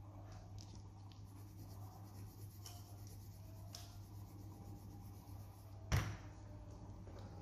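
Faint scratching of a coloured pencil shading on paper over a steady low hum, with one sharp knock about six seconds in.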